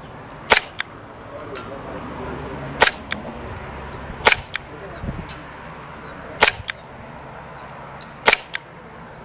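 VFC Glock 45 gas blowback airsoft pistol, running on green gas, firing five single shots about two seconds apart. Each shot is a sharp crack followed about a quarter second later by a fainter click.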